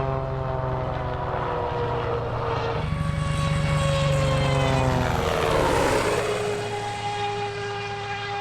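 Propeller engine of an Extra 300R aerobatic plane running hard on a low pass. Its pitch slides down several times, and a rushing whoosh of the pass-by comes about two-thirds of the way through.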